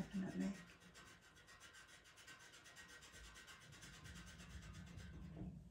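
Pastel pencil scratching over Pastelmat drawing paper in quick, even, short strokes, several a second, faint.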